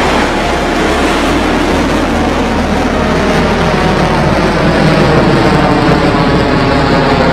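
Rocket Lab Electron's nine Rutherford first-stage engines firing at liftoff: loud, steady rocket engine noise.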